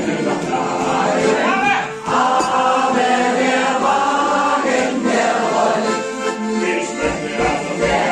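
An accordion plays a folk tune while several voices sing along, with a few low thumps near the end.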